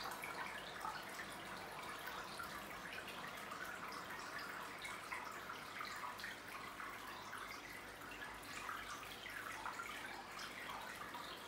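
Aquarium filter water trickling and splashing at the tank's surface, a steady stream of small drips and bubbles.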